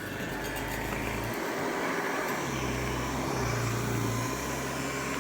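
Vintage Hoover 750 vacuum cleaner motor running steadily at speed, just after switching on. It runs smoothly, which the owner takes as a sign of serviced motor bearings.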